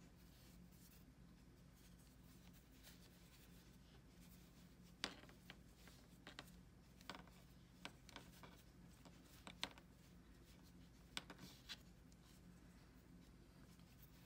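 Near silence over a low steady hum, with a scatter of faint soft clicks and rubs from about five seconds in as hands handle fleece strips and work them into a square knot.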